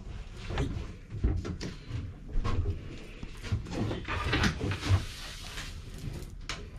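Scattered knocks, clicks and rustling of handling in a wooden cabin, with a few low thuds and a longer stretch of rustling about four seconds in.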